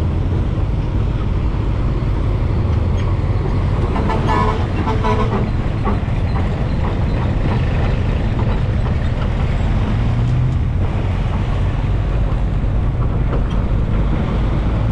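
Steady, heavy rumble of road traffic. A vehicle horn sounds once about four seconds in, lasting about a second and a half.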